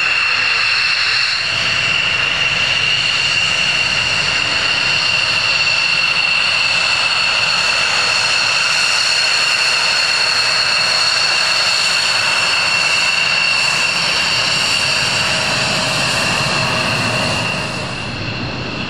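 F-16 fighter jet engines running with a steady high-pitched turbine whine over a loud rush of jet noise, easing off slightly near the end.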